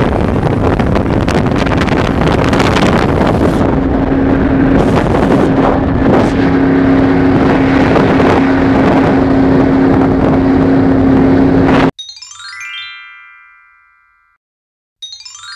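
Speedboat engine running steadily at speed with a steady hum, with wind on the microphone and rushing water. About twelve seconds in it cuts off abruptly and a short rising chime rings out and fades; it starts again near the end.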